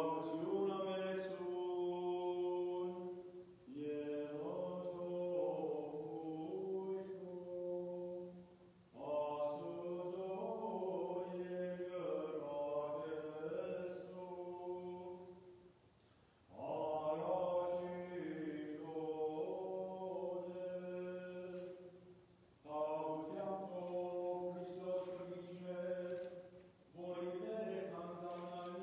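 Armenian Church liturgical chant: a voice singing in long phrases over a steady low held note. Each phrase is broken by a short pause for breath, five times.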